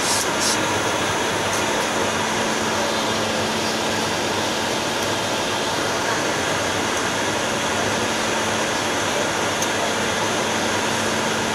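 Steady cockpit noise of a Bombardier Global 6000 business jet in flight: an even hiss of air with a faint low steady hum and a couple of light clicks at the very start.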